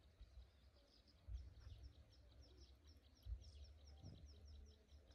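Faint bird call: a rapid run of short, high, falling chirps, about five a second, starting about a second in. An uneven low rumble runs beneath it.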